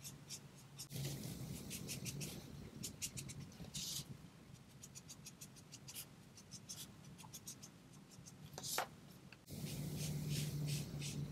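Gel pen scratching on cardstock in many quick short strokes, drawing stitch-like dashes along the card's edge.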